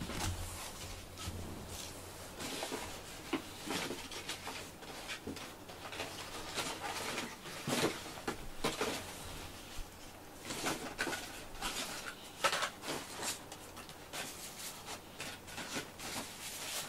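Scattered, irregular light clicks and scratches from a cat moving about: paws on plastic and litter, and at a bowl.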